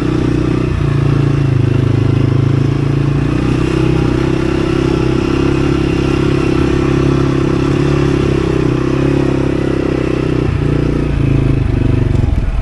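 A vehicle engine running steadily at low revs, its pitch shifting a little about a third of the way in.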